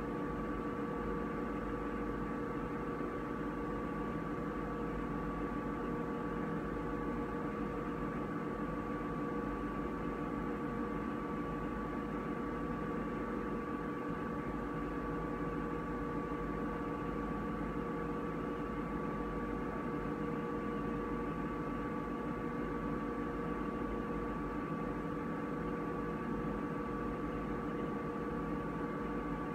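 Steady electrical hum with hiss: several fixed tones over an even noise floor, unchanging.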